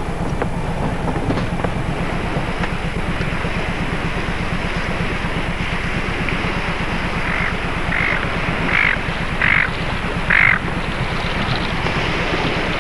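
Steady rush of wind and sea over a low machinery rumble aboard a ship under way. About seven seconds in come five short, hoarse calls in quick succession, each a little louder than the last.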